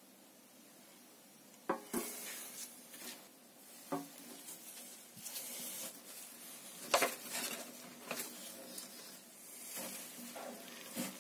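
Metal tweezers and a glass beaker being handled: a few sharp clinks and knocks with scraping between them, as a chunk of sodium is fished out of the ethanol. The loudest clink comes about halfway through.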